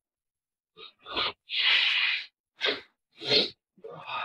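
Man with a cold sneezing and sniffling into a tissue: a string of short noisy bursts, with one longer, noisier one about a second and a half in.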